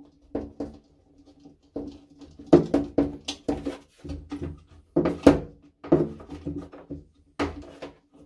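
Plastic float ball of a toilet ball cock being screwed onto its threaded lever arm inside the cistern: a series of short plastic scrapes and creaks, one with each twist.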